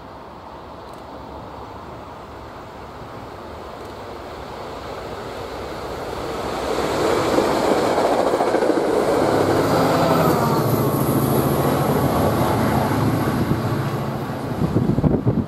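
NJ Transit push-pull commuter train, led by a Comet V cab car, approaching and passing at about 79 mph: a steadily rising rush of wheels on rail that turns into a loud, steady roar of cars going by from about seven seconds in. A low engine hum joins in the second half, and gusts batter the microphone near the end.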